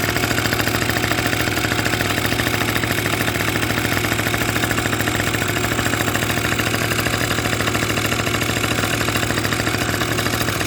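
Kymco Super Fever ZX 50cc two-stroke scooter engine idling steadily, with a fast, even firing rhythm.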